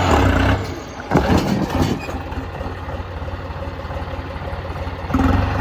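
Tractor diesel engine running with a steady, even firing rhythm, getting louder about five seconds in.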